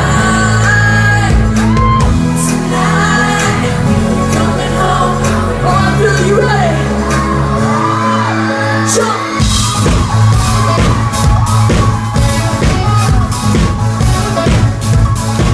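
Live pop band heard from the audience: a male lead singer over sustained keyboard chords and bass, with the full drum kit coming in about nine and a half seconds in. Shouts from the crowd are mixed in.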